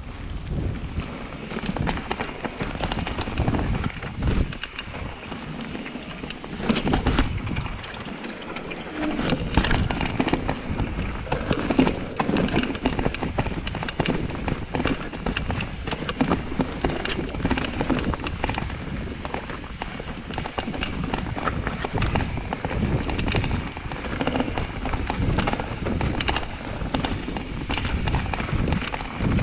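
Mountain bike riding down a trail, its tyres rolling over rock slabs and a leaf-covered dirt path. Frequent knocks and rattles come from the bike as it goes over bumps.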